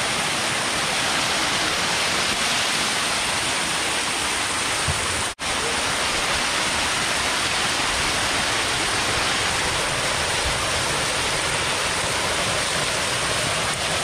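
Waterfall pouring over rock ledges right at the microphone: a steady, loud hiss of falling and splashing water. It cuts out for an instant about five seconds in.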